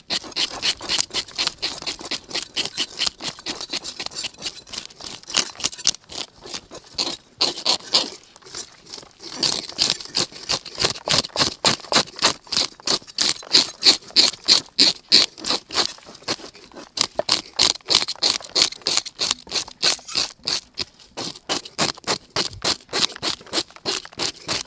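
Plastic fish scaler scraping the scales off a whole fish, in quick, even strokes about five a second, with a short break about eight seconds in.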